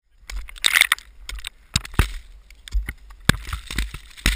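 Irregular sharp knocks of ice tools and crampons striking ice during a lead ice climb, about half a dozen in a few seconds, over a low wind rumble on the microphone.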